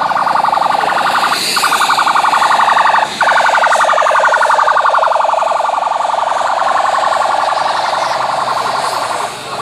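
Police car siren sounding a fast, pulsing warble, cutting out briefly twice in the first few seconds and fading near the end.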